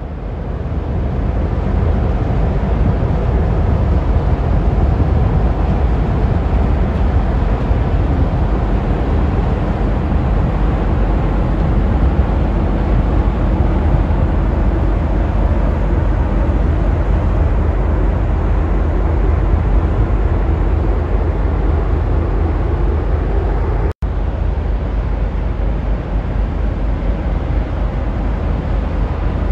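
Steady low rumble of the Trillium-class self-unloading lake freighter CSL Welland passing close by, with the sound briefly cutting out about three-quarters of the way through.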